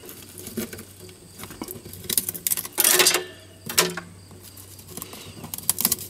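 Ice being scraped and broken off by hand from the metal cooling fins of an RV refrigerator: scratchy crackling with a few sharper cracks, the loudest about three seconds in.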